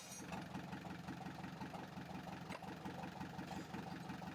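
Engine idling steadily with a rapid, even pulse.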